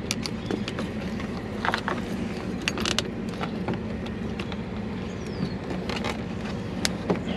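Steady low hum of a car engine running, with scattered light clicks and knocks from hands working loose the plastic clips of a car's side marker light.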